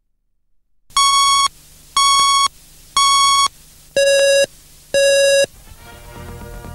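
Electronic countdown beeps of a TV tape leader: five half-second tones one second apart, the first three higher and the last two about an octave lower. Music starts fading in near the end.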